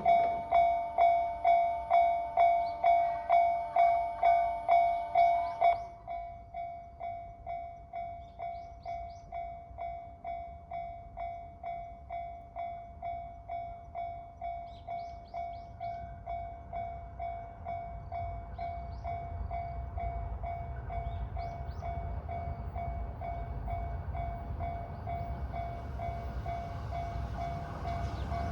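Japanese level-crossing alarm ringing its repeating "kan-kan-kan" at about two strokes a second. About six seconds in it drops much quieter and keeps ringing, while the low rumble of an approaching train builds and is loudest near the end.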